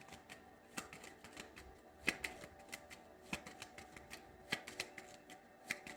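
A deck of tarot cards being shuffled by hand: soft, irregular clicks and slaps of card on card, a little louder about two seconds in and again a second later.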